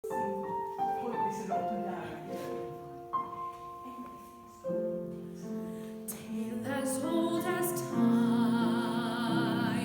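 Piano playing a slow melody, joined about two-thirds of the way through by a singer holding notes with a strong vibrato, louder near the end: a song being run through at a sound check.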